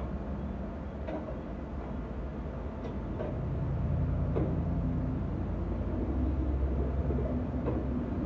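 A low motor rumble with a faint steady hum grows louder about three seconds in and eases off near the end. A few faint clicks and taps sound over it.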